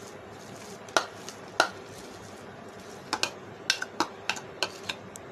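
Metal spoon clicking and tapping against the chopper bowl and a plastic bowl while ground kebab meat is scraped out: a couple of separate taps, then quicker taps from about three seconds in.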